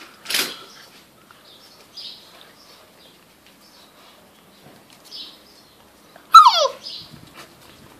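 A Tosa puppy gives one short yelp that falls quickly in pitch, just after six seconds in, the loudest sound here. Near the start there is a sharp brief noise, with small scuffles and rustles in between as the puppies tug at a towel.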